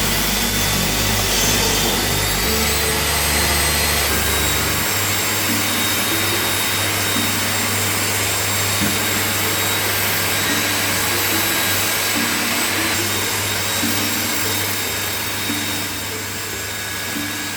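A woodworking power tool running steadily with a continuous whirring noise, under background music.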